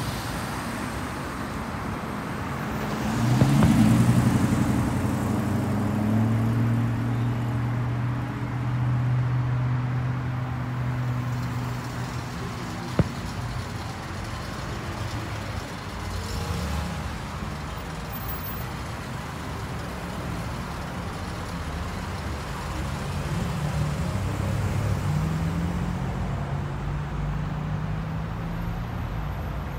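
Road traffic: car engines passing and pulling away, with a loud rising engine note about three seconds in and another spell of engine noise near the end, over a steady wash of tyre and traffic noise. A single sharp pop sounds about halfway through.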